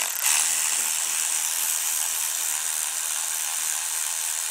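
Cordless electric ratchet running with a steady whir, spinning a loosened 10 mm cylinder head bolt out of a Briggs & Stratton 190cc overhead-valve mower engine.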